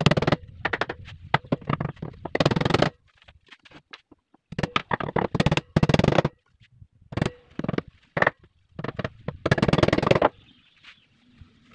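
Hammer tapping nails into the plywood panels of a speaker cabinet: quick runs of sharp taps in about five bursts, with short pauses between.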